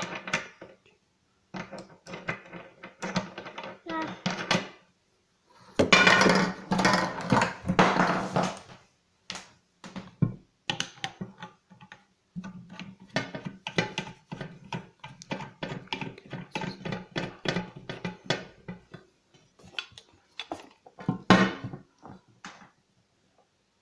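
Parts of an angle grinder and its packaging being handled: irregular knocks, clatter and rustling, busiest about six to eight seconds in.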